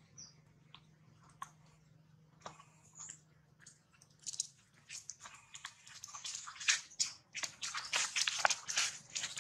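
Long-tailed macaque crunching food: a run of crisp crackling clicks, sparse at first and growing dense and louder over the second half, over a faint low hum.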